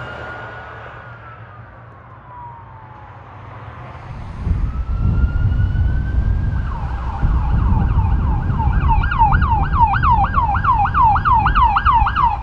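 Emergency-vehicle electronic siren. A held wail tone slides down in pitch over the first few seconds. After a cut, with a low rumble underneath, a police SUV's siren rises in a wail and switches partway through to a fast yelp, cycling about two and a half times a second.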